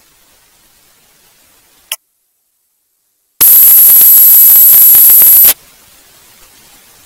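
Faint hiss from a dropped-out audio feed, a click, then dead silence. About three and a half seconds in comes a very loud burst of static with a steady high whine on top, lasting about two seconds and cutting off sharply back to hiss.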